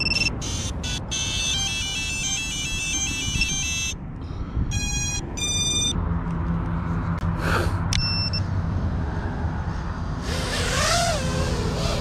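FPV quadcopter powering up: its ESCs play a quick run of electronic beep tones as the battery is connected, then two more beeps. From about six seconds in the brushless motors spin with a steady hum, and near the end a whine rises and falls as the throttle goes up and the quad lifts off.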